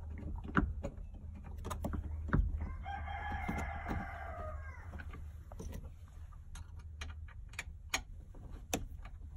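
Light metallic clicks and taps of Allen-head bolts, spacers and a hex key being handled while a rear grab handle bar is fitted by hand. About three seconds in, a single drawn-out call is heard in the background, held for nearly two seconds and falling in pitch at its end.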